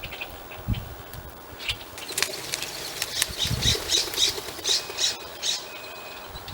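Wild birds at a seed spread: a quick run of harsh squawking calls through the middle, with low wing-flap thuds about a second in and again mid-way.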